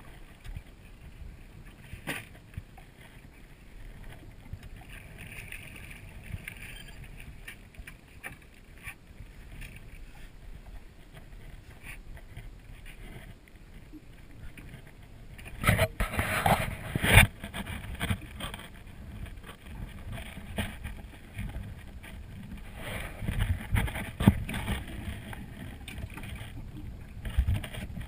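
Small fishing skiff on a river: a steady low rumble of wind and water on the boat-mounted microphone, with knocks and clatter of gear and footing on the hull, loudest in a burst about halfway through and again a few seconds before the end.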